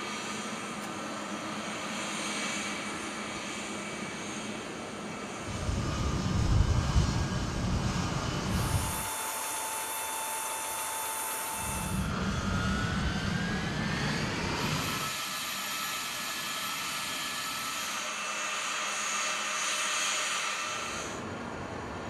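Jet engines of a C-17 Globemaster, its Pratt & Whitney F117 turbofans, running through a string of short clips that change abruptly, with a whine that rises in pitch about halfway through.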